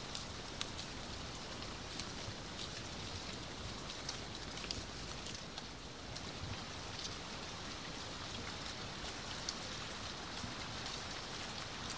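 Falling autumn leaves pattering onto the leaf-covered ground: scattered light ticks over a steady outdoor hiss.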